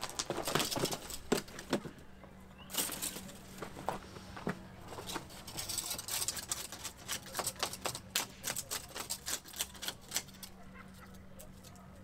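Dry dead branches and twigs cracking and snapping as they are broken up by hand for firewood, in quick irregular cracks that come thickest in the second half.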